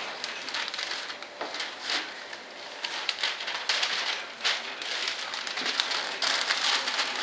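Brown masking paper rustling and crinkling in irregular bursts as sheets are handled and laid in place to mask off an area for spray painting.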